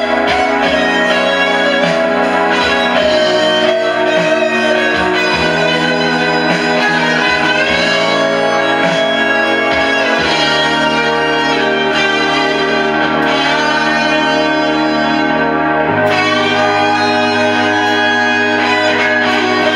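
Slow blues-rock lead on a Les Paul-style electric guitar through an amp, long sustained notes with string bends, over a backing track with a held bass line that changes note about three-quarters of the way through.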